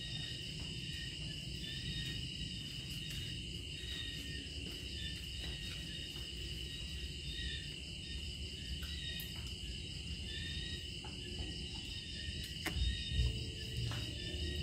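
Steady, pulsing chorus of crickets and other night insects, with a few faint clicks and scrapes of a small knife peeling a green mango.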